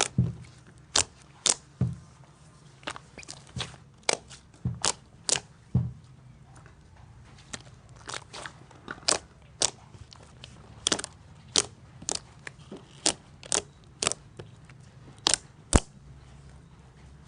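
Slime being squeezed and poked by hand, making irregular sharp pops and clicks, about one or two a second.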